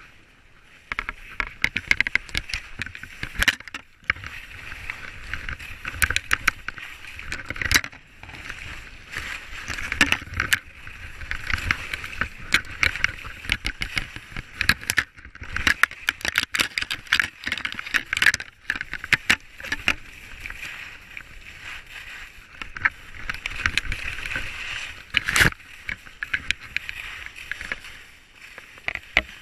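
Skis scraping and sliding over snow on a downhill run, a steady rasping hiss broken by many sharp clicks and knocks.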